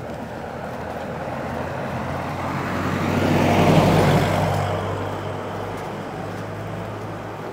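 A motor vehicle passes on the street. Its engine and tyre noise grows louder, peaks about four seconds in, then fades away.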